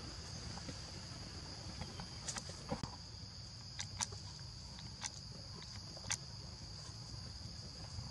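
Steady high-pitched drone of insects. Around the middle come a handful of short, sharp clicks and rustles, over a low rumble.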